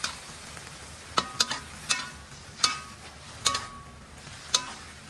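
Metal spatula scraping and knocking against a wok as vegetables and fish are stir-fried, a sharp clank with a brief metallic ring about once a second, over a steady sizzle of frying.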